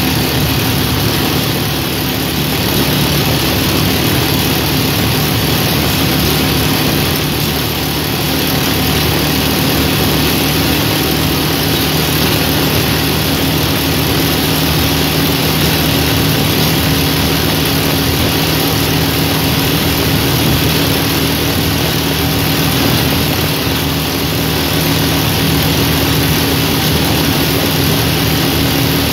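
Motorcycle engine running at a steady cruising speed, with loud wind noise rushing over the microphone.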